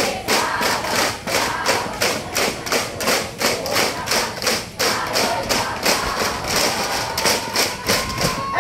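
Percussion for a tribal dance beating a fast, steady rhythm of struck strokes, about three to four a second.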